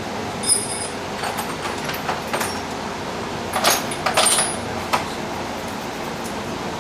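Metal hand tools such as sockets and hex keys clinking and rattling as they are handled and swapped: about half a dozen short, sharp clinks, the loudest a little past the middle, over a steady background hiss.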